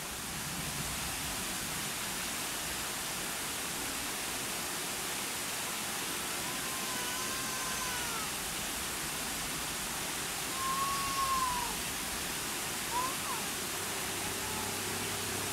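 A steady hiss of open-air background noise, with a few faint, short, arched whistled notes: two or three between about six and eight seconds in, the loudest near eleven seconds, and a brief one near thirteen seconds.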